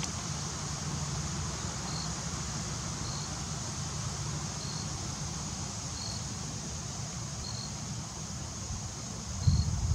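Wind rumbling on the microphone over a steady high hiss, with a faint short high chirp repeating every second or so, and a louder gust of wind noise near the end.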